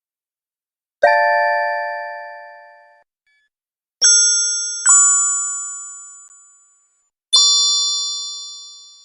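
Cute magic chime sound effects: four bell-like strikes, each ringing and fading away over about two seconds. The first is lower in pitch; the other three are brighter and higher, two of them close together.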